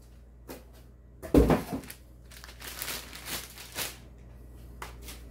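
Unboxing handling noise: a cardboard box is moved and set down with a loud thump about a second and a half in, followed by a couple of seconds of packaging rustling and crinkling, and a short click near the end.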